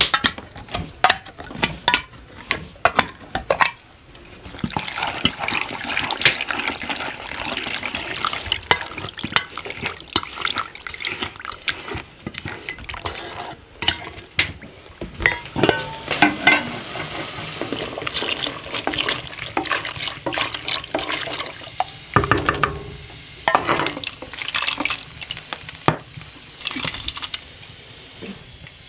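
Water running with many small clinks and knocks, like washing up at a sink.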